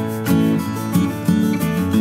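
Background music: strummed acoustic guitar in a steady rhythm.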